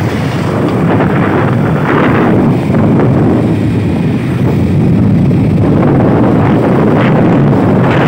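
Wind buffeting the microphone of a camera on a moving vehicle, a loud, gusty rumble that swells and eases, with road noise of the drive underneath.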